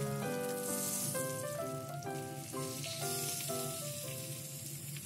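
Pomfret pieces sizzling in shallow hot oil on a flat tawa, a steady hiss that swells briefly now and then, under background instrumental music with a steady run of notes.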